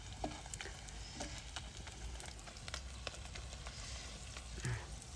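Salted fish frying in oil in a cast-iron wok on a low flame, sizzling quietly with scattered small pops and crackles.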